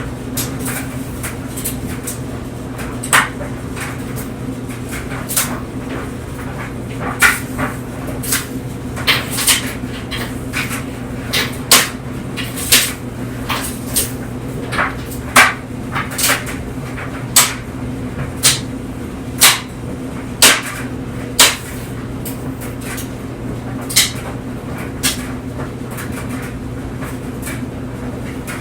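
Clothes dryer running with a steady motor and drum hum, while the tumbling load knocks and clicks against the drum at irregular intervals, most densely through the middle.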